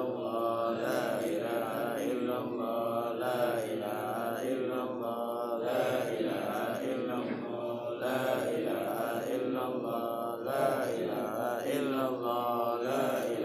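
Men's voices chanting an Arabic dhikr in a steady, continuous line, a short phrase repeating about every two and a half seconds.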